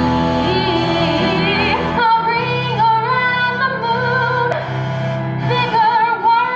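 A woman singing a song from a stage musical, her voice wavering with vibrato over instrumental accompaniment.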